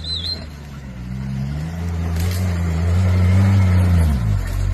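Toyota Land Cruiser engine working up a steep muddy climb. The revs rise about a second in, hold steady, then drop off near the end.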